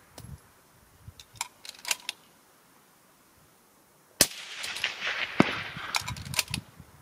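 A single rifle shot from a Tikka T3X in 6.5 Creedmoor about four seconds in, followed by about two seconds of rolling echo with further sharp cracks in it. A few faint clicks come in the first two seconds.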